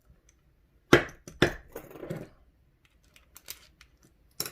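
Small metal padlock parts clicking and knocking as the lock is taken apart. There are two sharp knocks about a second in, a brief rattle, a few light ticks, and a sharp click near the end.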